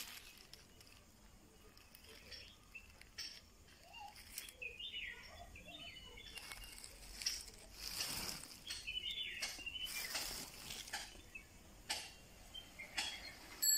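Dried black pepper spikes rustling and crackling as a hand rummages through them in a sack, busier about halfway through. Faint chirping sounds in the background.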